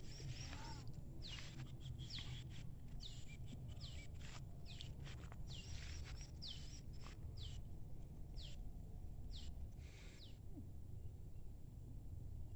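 Bird calls: short, high chirps that fall in pitch, repeated about once a second, over a low steady rumble of wind on the microphone.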